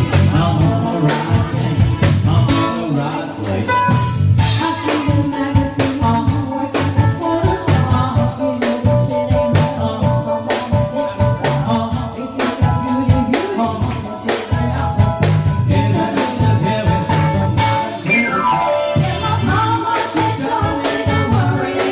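Live band playing an upbeat dance number with a singer, a drum kit keeping a steady beat under keyboard and voice, with a quick falling run about three-quarters of the way through.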